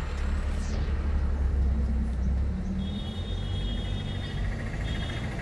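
Car cabin rumble from a moving car, steady and low. Faint high electronic beeps come in about three seconds in and again near the end.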